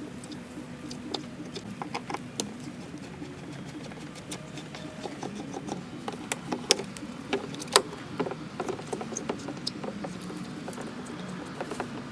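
Phillips screwdriver backing out the screws holding a car's rear turn signal, with scattered small clicks, ticks and scrapes of metal on plastic.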